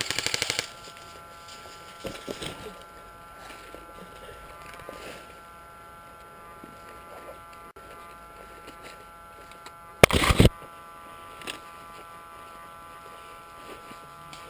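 Airsoft electric gun firing a short, rapid full-auto burst for about half a second, then a second, louder brief burst about ten seconds in. Between them only a faint steady whine of several tones.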